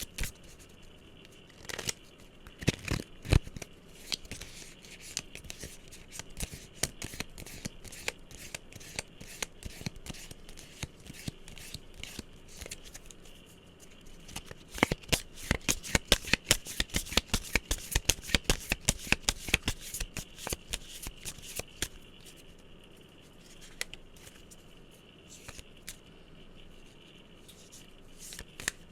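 Fingertips tapping and scratching on a hard object, close up: scattered light clicks, a few sharper knocks a few seconds in, then a fast run of rapid taps in the middle before it thins out again.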